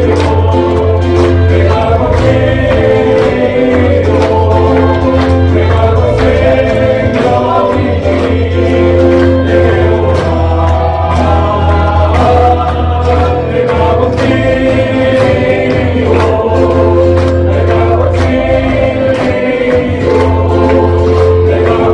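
A men's group singing a Korean gospel praise song in unison over a band, with a steady bass line and regular drum beats.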